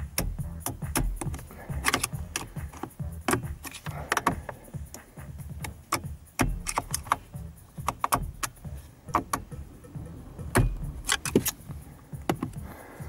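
Irregular sharp metallic clicks and clatters of hand tools working at a car's steering wheel, with a few dull knocks.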